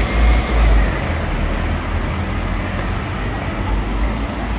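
Road traffic with a double-decker bus pulling away close by: a steady low rumble, heaviest in the first second, with a faint whine early on.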